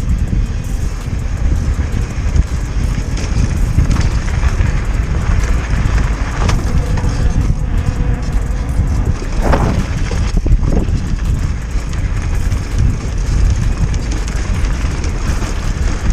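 Wind buffeting an action camera's microphone and tyre noise while an e-bike is ridden, a loud, steady low rumble that rises and falls.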